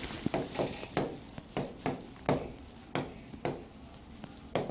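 Marker pen writing on a whiteboard: a string of short stroke sounds, about two a second, as letters are drawn.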